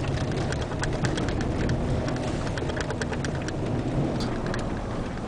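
Vehicle driving: a steady low rumble with many small, sharp ticks and clicks scattered over it.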